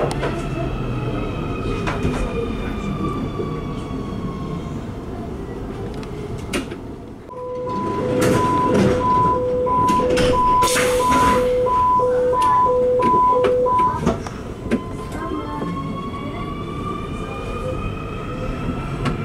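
Underground train's traction motors whining down in pitch as it brakes into a station. Then a door-closing warning beeps steadily, some eight beeps over about six seconds, with door and passenger clatter. From about two-thirds of the way through, the motor whine climbs in pitch as the train pulls away.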